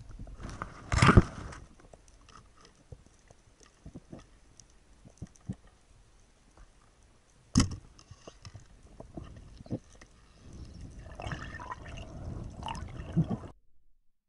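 Underwater sound through a camera housing: gurgling water with scattered clicks and knocks, two loud short bursts about a second in and near the middle, and a busier stretch of bubbling and knocking near the end before the sound cuts off suddenly.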